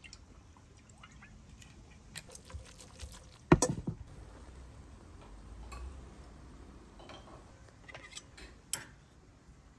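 Metal utensils clinking and scraping against a stainless steel pot and a plate while tossing and serving linguine, with one loud clank about three and a half seconds in.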